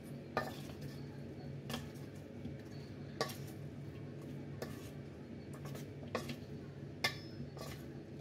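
A metal spoon stirring batter-coated cauliflower florets in a stainless-steel bowl, clinking and scraping against the bowl with a sharp tap about every second, over a steady low hum.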